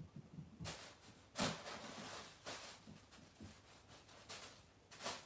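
Thin plastic bag crinkling and rustling in several short bursts as a kitten pounces on it and bats it, with soft low knocks of paws on the wooden floor in the first second.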